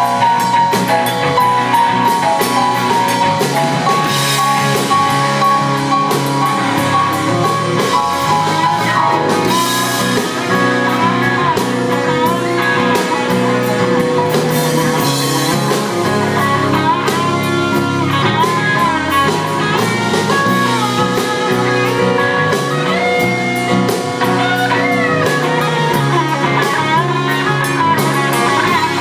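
Rock band playing an instrumental passage: guitar and drum kit, with a bending lead melody line carrying through the second half.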